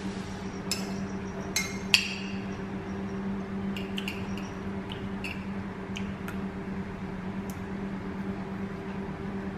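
Metal spoon clinking and scraping against a ceramic plate of fried rice: scattered sharp clinks, the loudest about two seconds in with a short ring. A steady low hum runs underneath.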